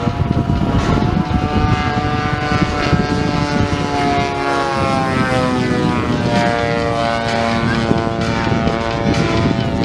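Propeller engines of two radio-controlled scale Spitfire models flying past, their pitch gliding down about halfway through as they pass.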